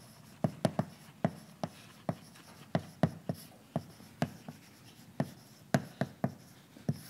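Chalk writing on a blackboard: an irregular, quick run of sharp taps and short scratches as the letters are formed.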